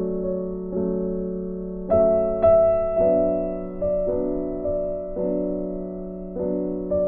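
Background piano music: sustained chords struck about once a second, each fading before the next.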